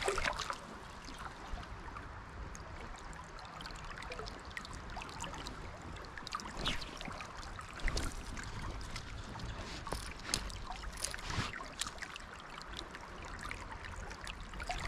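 Shallow creek water running and rippling over a rocky bed, with a few brief ticks and a low rumble underneath.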